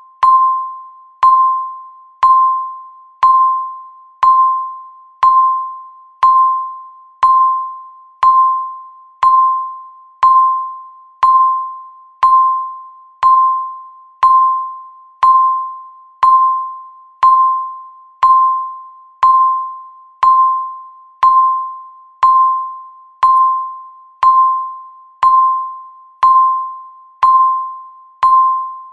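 Countdown timer tick sound: a short electronic tick with a single ringing, bell-like tone, repeating once a second, each one dying away before the next.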